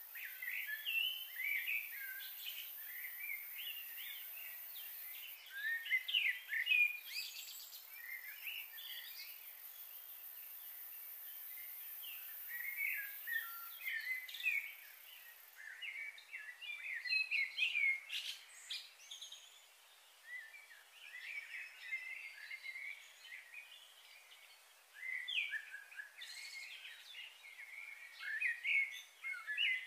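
Small birds chirping, with many quick, short calls overlapping in bursts and brief lulls between them.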